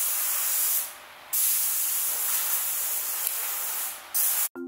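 Compressed air hissing from an air-fed spray gun in bursts: one running on from before, a long one of about two and a half seconds, and a short final one.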